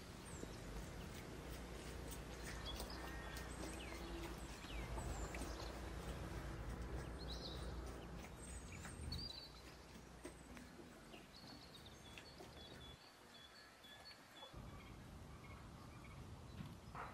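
Hands kneading soft dough in a stainless steel bowl, a faint dull squashing and pressing, mostly in the first half. Small birds chirp now and then in the background.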